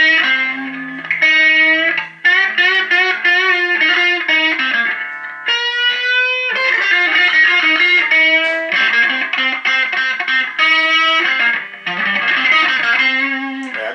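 Electric guitar playing a blues lead of single held notes, several of them bent and wavering in pitch, with a brief break about two seconds in.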